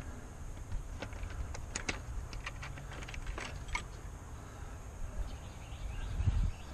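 Hands working on an outboard engine's carburetor: a few scattered light clicks and knocks of tools and metal parts over a low rumble, with a duller bump near the end.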